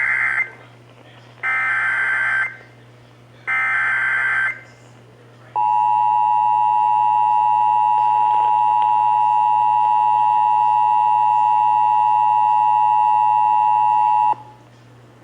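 Emergency Alert System activation heard over AM radio: the end of one SAME header data burst, then two more, each a harsh buzzy screech about a second long with a second's gap between. After these comes the EAS two-tone attention signal, a steady dual tone held for about nine seconds that cuts off sharply near the end.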